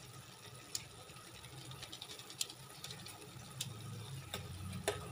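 A pan of noodles and vegetables in water simmering on a gas stove, a faint low rumble, with five or so light clicks of a metal ladle touching the pan as Maggi masala is added and stirred in.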